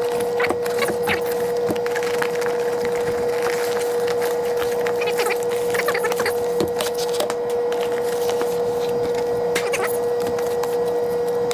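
Cardboard packaging and plastic wrap crinkling and rustling with scattered crackles as a box is unpacked by hand, over a steady hum.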